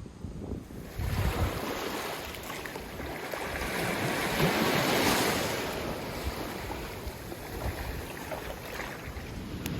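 Ocean waves breaking on the shore: a wash of surf that builds to a peak about halfway through, then draws back. Some wind rumble on the microphone.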